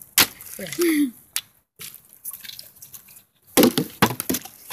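A partly filled plastic water bottle being flipped onto pavement: a sharp knock just after the start, then about three and a half seconds in a heavier thud followed by several quick knocks, with the water sloshing inside as it lands and tips.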